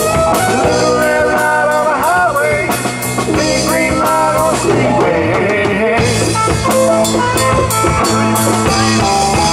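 Live blues-rock band playing: two electric guitars, bass guitar and drum kit, with the drums keeping a steady beat throughout.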